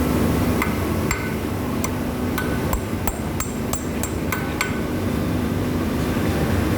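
Hammer tapping on metal parts of a screw compressor under overhaul: about a dozen light, irregular strikes, each with a short metallic ring, most of them bunched in the middle. A steady low hum runs underneath.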